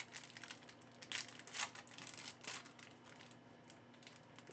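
Yu-Gi-Oh booster pack wrapper crinkling and tearing as it is opened by hand. A run of sharp rustles comes in the first two and a half seconds, then softer handling.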